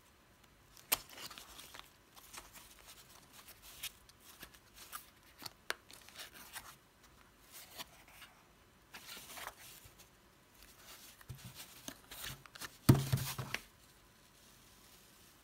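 A small cardboard box and its packaging handled by hand: scattered clicks, rustles and tearing as the flaps are opened, with a louder burst of rubbing near the end as the plastic jar slides out.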